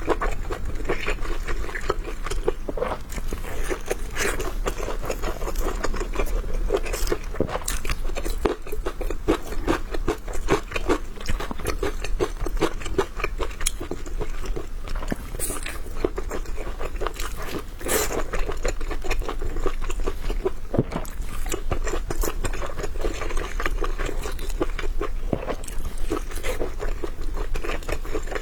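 Close-up eating sounds: a person biting and chewing, with many small crisp crunches and wet clicks throughout, as sweet pickled (sugar-cured) garlic cloves are crunched.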